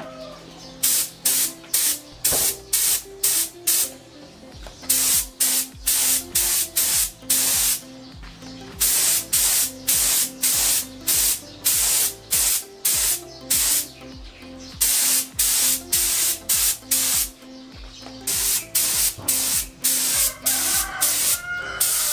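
Spray gun spraying mixed two-part anti-corrosion primer in many short hissing bursts, about two a second, in runs of several seconds broken by brief pauses. Background music with a steady beat plays underneath.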